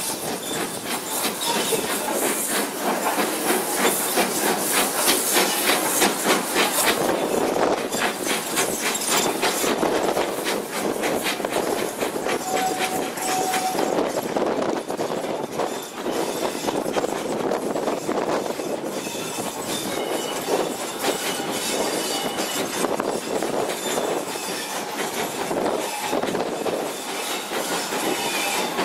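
Steam train running, heard from an open carriage window behind the locomotive: a fast, rhythmic beat with steam hiss and the clatter of wheels on the track, loudest in the first several seconds.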